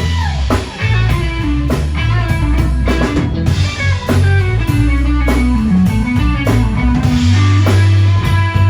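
Live rock band playing: electric guitar over a drum kit and a heavy, steady bass line.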